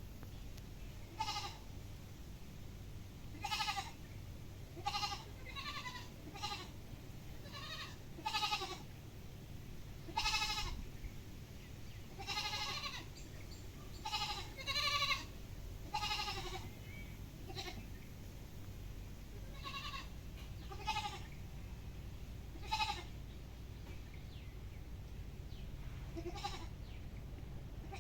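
Goats bleating: many short, high bleats, one every second or two at uneven intervals.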